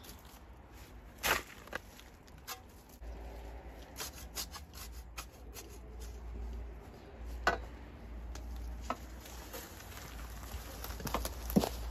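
A spade scraping into soil and tipping shovelfuls of earth into a steel wheelbarrow, with a few sharp knocks, the loudest near the end.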